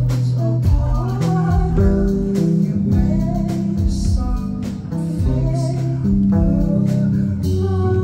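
Live band music: an electric bass holding long low notes that step in pitch under singing voices, with regular percussive hits.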